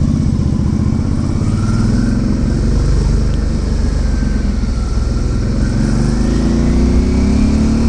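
Suzuki V-Strom 650's V-twin engine running under way, its note rising gradually in the second half as the bike speeds up, with wind noise throughout.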